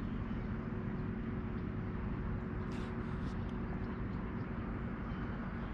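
Steady low background rumble with a faint held hum, and a few faint light ticks about three seconds in.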